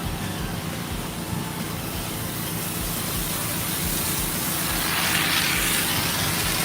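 Pressure washer running with its wand spraying water onto a concrete driveway: a steady hiss of spray over the machine's drone, growing louder about five seconds in.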